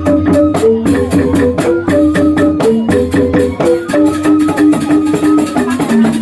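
Balinese rindik bamboo xylophone ensemble playing a quick run of short struck notes, over a steady percussion beat.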